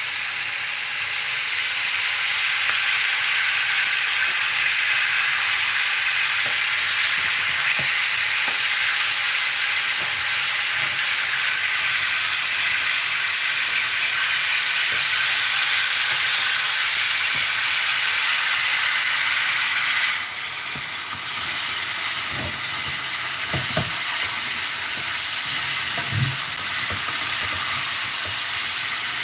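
Pineapple chunks sizzling in butter and powdered sugar in a frying pan, stirred with a wooden spatula. The steady sizzle eases slightly about two-thirds of the way through, and a few light knocks come near the end.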